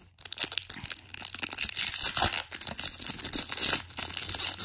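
Foil wrapper of a Pokémon trading-card booster pack being torn open and crinkled by hand: a run of crackling, tearing noise with many sharp crinkles.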